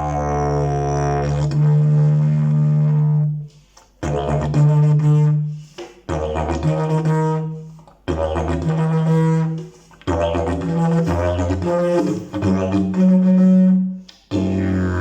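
Fiberglass-and-leaf slide didgeridoo droning in about six phrases broken by brief pauses, the low fundamental shifting in pitch between phrases as the slide moves, with changing overtones above it.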